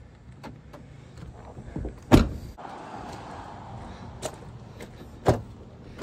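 Knocks and rustling of tools and gear being handled and moved. The sharpest knock comes about two seconds in, with two lighter knocks near the end.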